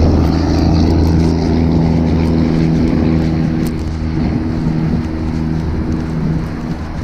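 A road vehicle's engine runs as a steady low drone, easing off a little in the second half, with wind rushing over the microphone from riding.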